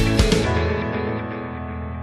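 Background music ending on a held chord that fades out.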